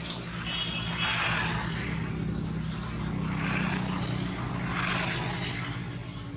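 A motor engine hums steadily and low in the background, with three swells of rushing noise: about a second in, midway, and about five seconds in.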